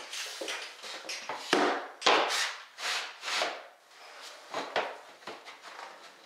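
A coped length of primed MDF base trim being pushed into place in an inside corner for a trial fit: a run of rubbing and scraping with short wooden knocks, the sharpest about one and a half to two seconds in.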